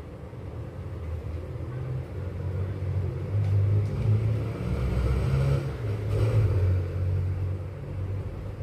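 Low rumble of a passing motor vehicle, growing louder through the first half and easing off near the end.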